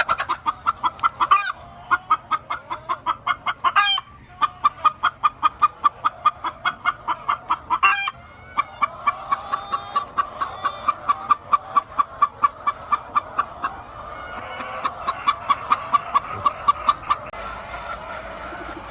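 Chickens clucking: runs of quick, evenly spaced clucks, about five a second, each run lasting a few seconds and breaking off before the next begins.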